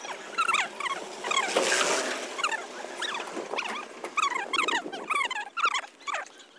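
Many short, high-pitched animal cries that rise and fall and overlap one another, with a brief rush of noise about a second and a half in.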